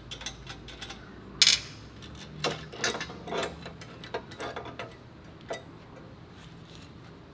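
Clicks and knocks of tools and metal parts being handled: one sharp knock about a second and a half in, then a scatter of lighter knocks, over a low steady hum.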